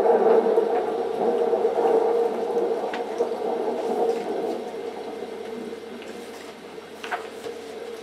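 Pages of a large book being turned by hand, with a few short crisp paper rustles, over a steady hum of several pitches that slowly fades.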